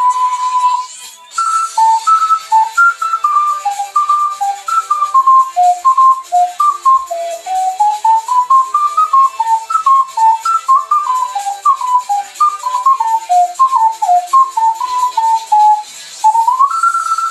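Ocarina playing a melody of clear, pure notes: a held note at the start, then a quick run of short stepping notes, and near the end a note sliding up into a long held note.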